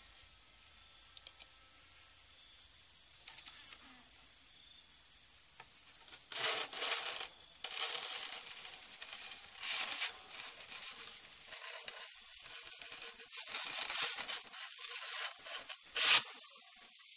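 Wooden, foam-lined beehive box being opened by hand: scraping and rustling of the polystyrene lid and divider a few times, and a sharp knock about sixteen seconds in. Under it an insect chirps steadily and fast, about six high chirps a second.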